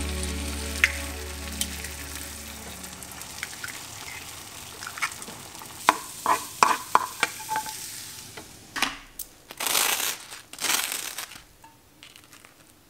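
Eggs frying and being scrambled in a non-stick frying pan: a light sizzle with a spatula tapping and scraping the pan, then a few louder scrapes as the eggs are scooped out and served. Background music fades out over the first few seconds.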